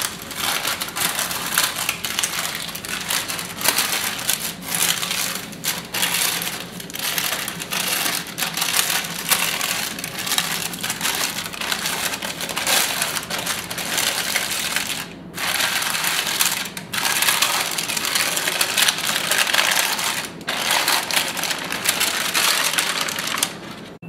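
Baking parchment crinkling and crackling as it is peeled off a warm, freshly baked sponge sheet, in a near-continuous run broken by a few brief pauses.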